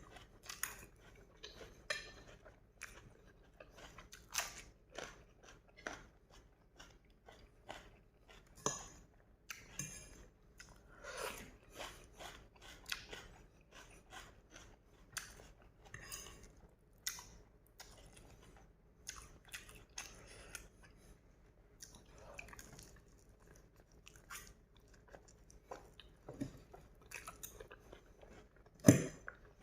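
Close-up chewing and mouth sounds of a person eating noodles: irregular wet smacks and crunches, with a louder knock near the end.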